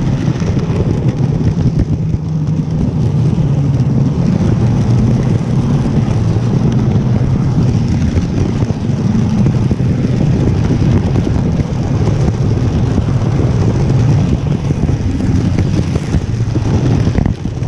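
HO-scale Bachmann model train running on track, picked up loud and close by a camera riding on the flat car coupled behind the engine: a steady rolling noise with no let-up.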